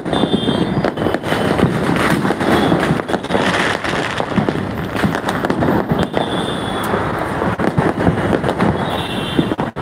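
Dense Diwali fireworks: a constant run of firecracker and sky-shot aerial shell bangs and crackles, with short high whistling tones every few seconds.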